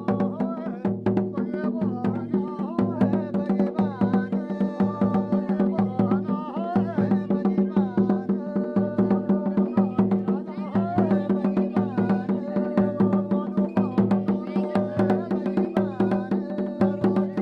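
Background music: a steady held drone under a wavering melody, with an even drum beat.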